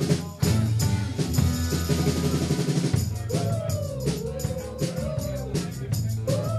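Live rock band playing, with the drum kit's kick and snare driving a steady beat under electric guitars and bass. A melody line comes in over the band about halfway through.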